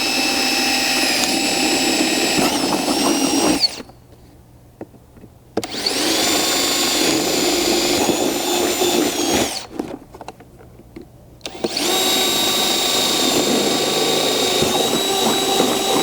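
Power drill with a 1/4 inch bit running steadily as it drills three holes through a plastic door panel, three separate runs of about four seconds each with short pauses between.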